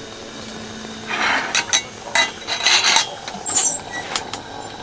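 A lit Coleman pressure lantern being handled: a run of sharp metallic clicks and clinks from the lantern's parts, mostly between one and three and a half seconds in, over the steady hiss of its burner.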